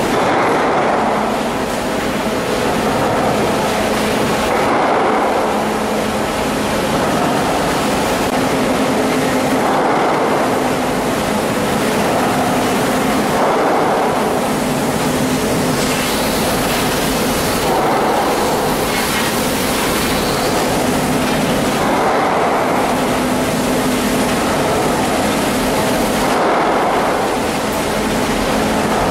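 Fertilizer production line machinery running: a steady mechanical hum under a noisy wash that swells and eases every few seconds.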